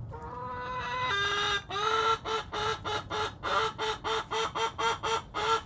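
Chicken calling: one long held note lasting about a second and a half, then a fast run of short, loud, repeated calls at about four a second.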